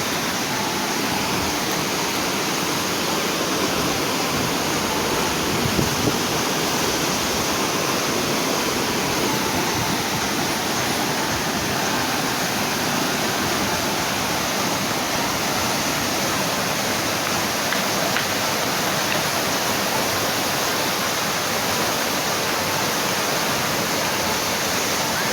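Waterfall rushing steadily: a continuous, even noise of falling water.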